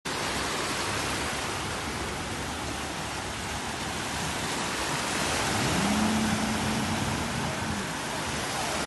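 Small waves washing over sand in shallow water at the shoreline, a steady hiss. A little past the middle a faint low hum rises in and holds for about two seconds.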